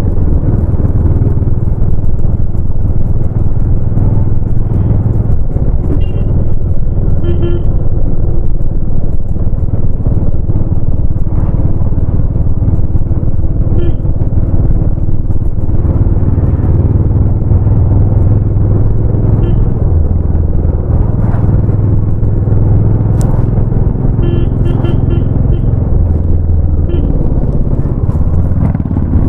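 Royal Enfield Bullet 350's single-cylinder four-stroke engine and exhaust running under way, the engine note swelling and easing as the throttle changes. Short horn toots sound several times.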